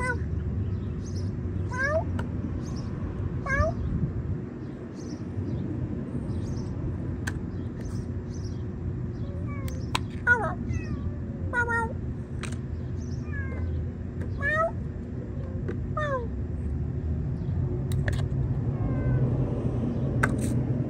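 Cat meowing again and again, a dozen or so short calls that slide up or down in pitch, over a steady low background rumble with a few sharp clicks.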